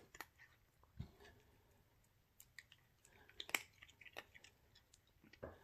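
A cat chewing a treat taken from a hand: faint, irregular little crunches and clicks.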